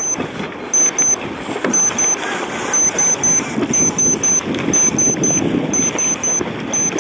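Sailing race start timer beeping out the final seconds of the countdown to the start: a group of short, high beeps about once a second, two per group at first and three per group over the last few seconds. Steady rushing wind and water noise runs underneath.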